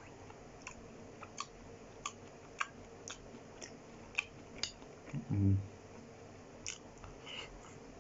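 Close-miked chewing of a mouthful of cooked carrot and an oven chip in curry sauce: soft mouth clicks about twice a second, pausing for a brief low hum from the eater a little after five seconds in, then a few more clicks.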